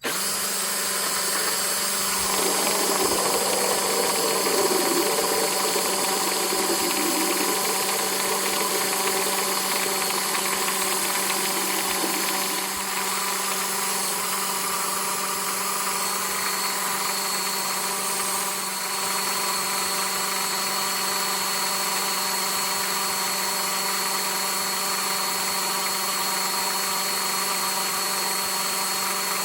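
DeWalt cordless drill running steadily at constant speed, driving a drill-powered water pump while it pumps water out of a 5-gallon bucket. About two seconds in, a rougher noise joins it for about five seconds.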